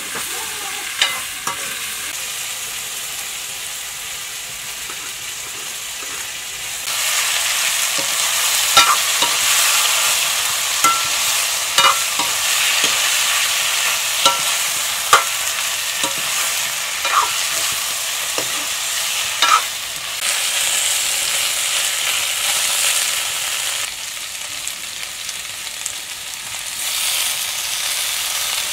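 Cauliflower and fish pieces frying in an iron kadai, sizzling steadily, while a steel ladle stirs and knocks sharply against the pan now and then. The sizzle gets louder about seven seconds in and eases off for a few seconds near the end.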